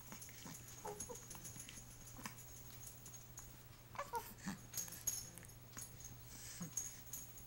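A baby hiccuping: several short, faint hics a second or two apart, some with a tiny squeak.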